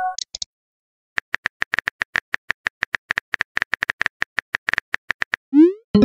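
Phone on-screen keyboard typing sound effect: a quick run of short, even clicks, several a second, as a text message is typed. Near the end comes a short rising whoosh as the message is sent, running into a chime.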